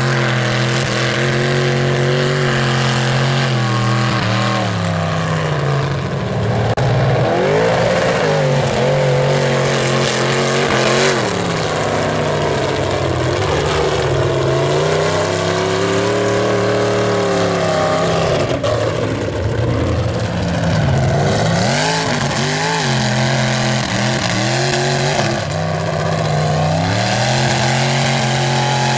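Mud-bogging pickup truck engines revving hard as the trucks plough through a deep mud pit. The pitch climbs and falls again and again as the drivers work the throttle.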